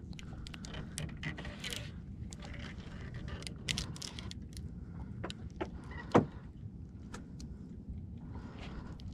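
Scattered light clicks and small rattles of fishing gear being handled in a small boat, over a steady low rumble, with one sharp knock about six seconds in.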